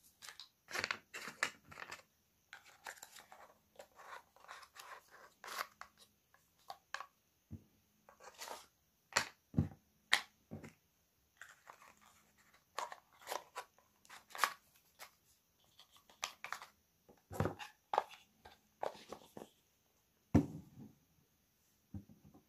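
Phone box and packaging being handled and opened: irregular crinkling and tearing with sharp clicks and knocks, in short bursts.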